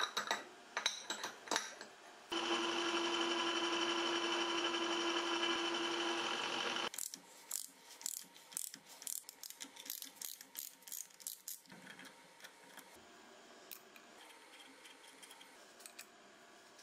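Workshop sounds: metal parts clinking and knocking, then a small power tool motor running steadily for about four and a half seconds, starting and stopping abruptly. After it comes a quick run of clicks and clinks that thins out towards the end.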